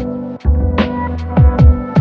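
Electronic background music with a heavy, regular drum beat over held synth tones.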